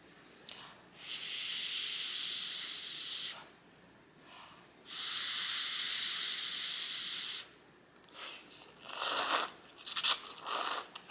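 A person blowing twice on hot ramen noodles to cool them, each breath a steady airy hiss of about two seconds, followed near the end by several short slurping and chewing sounds.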